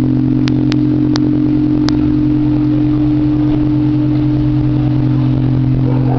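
Bronze church bells heard close up in the belfry, their sound hanging as a steady deep hum at the pitch of the largest bell's low C and its octave. A few sharp light metallic clicks come in the first two seconds.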